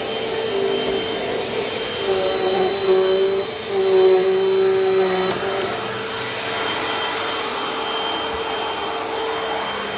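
Dirt Devil Dynamite Plus upright vacuum cleaner running steadily as it is pushed over carpet, a motor whine with a high steady tone over a rushing hiss, its pitch wavering slightly as the load changes.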